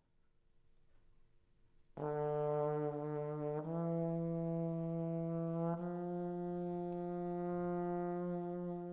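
Trombone entering about two seconds in and holding three long notes, the pitch stepping twice, the last note tapering off near the end: the opening of a slow jazz ballad.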